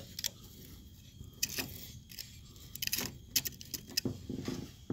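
A stick of firewood being pushed by hand into a brick rocket stove's feed opening: scattered knocks, clicks and scrapes of wood against the perforated metal fuel shelf and the bricks.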